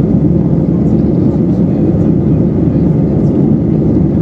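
Steady, loud engine and airflow noise inside the cabin of an Airbus A319-132 climbing after takeoff, its IAE V2500 turbofans running at climb power, heard from a window seat beside the wing.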